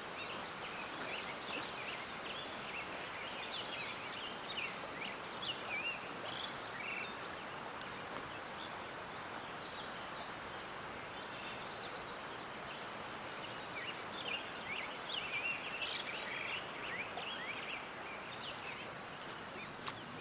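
Outdoor nature ambience: the steady rush of a river, with small birds chirping and trilling over it throughout.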